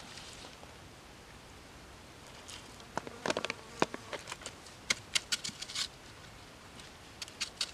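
Hands stuffing seasoned pork mixture into a green bamboo tube. Quiet at first, then a run of small sharp clicks and wet crackles from about three to six seconds in, with a few more near the end.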